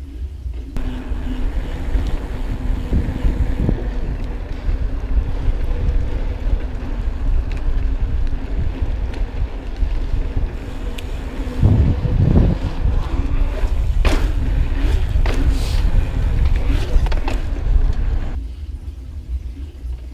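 Wind buffeting the microphone of a chest-mounted action camera during a mountain bike ride, with a steady hum and scattered knocks and rattles from the bike. A heavier thump comes about twelve seconds in, then several sharp clicks, and the sound drops away about eighteen seconds in.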